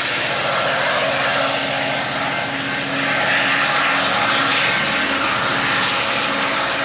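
GO Transit MP40 diesel-electric locomotive working under power as it pushes a 12-car train away, a loud, steady running noise of engine and wheels on rails.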